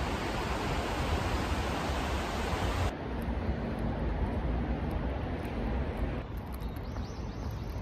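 Steady rushing outdoor noise with a strong low rumble. It changes character about three seconds in and loses some of its hiss near the end.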